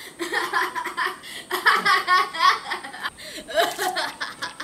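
Laughter: a person laughing in quick repeated pulses, in a few separate spells.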